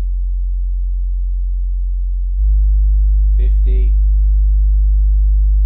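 REL T9x subwoofer playing a steady 45 Hz bass test tone that steps up to 50 Hz about two and a half seconds in, becoming noticeably louder, where the room has a bass mode.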